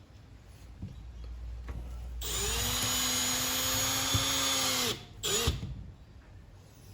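Power drill motor spinning up and running at a steady speed for nearly three seconds, winding down, then a brief second squeeze of the trigger.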